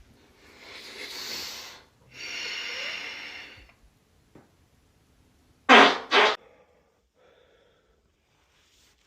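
A run of farts: two drawn-out ones of about a second and a half each, the second with a buzzing pitch, then two short, loud blasts about half a second apart some six seconds in, and a faint short one after them.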